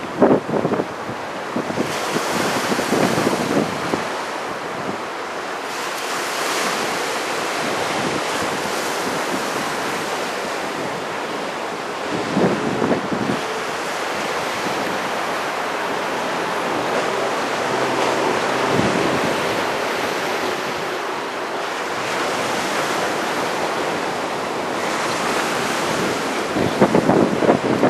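Strong wind buffeting the microphone in gusts over the steady rush of heavy surf from big typhoon swell.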